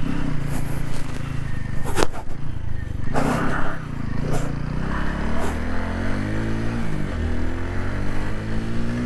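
Motorcycle engine running while being ridden on a dirt track, with a sharp knock about two seconds in. Through the second half the engine pitch rises steadily as the bike speeds up, dipping briefly once near seven seconds.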